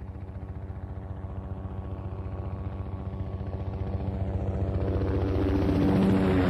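Helicopter fly-by: the rotor blades chop in a steady rhythm over an engine hum, quiet at first and growing steadily louder as the helicopter comes closer.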